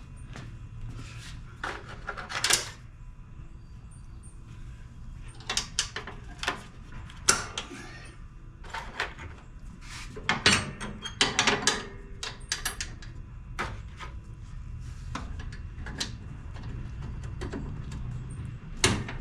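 Irregular knocks, clanks and clicks of hand work on a riding mower's deck and lift linkage, coming in clusters over a low steady background hum.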